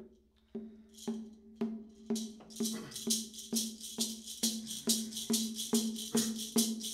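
Water drum and horn rattles beating out the steady pulse of a Haudenosaunee women's dance song, with no singing yet. Each drum stroke rings at a low pitch under a rattle shake. The beat starts about half a second in and quickens slightly to a little over two beats a second.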